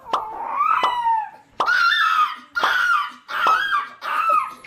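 A small dog whining and crying in a series of about five high, wavering calls, each under a second long.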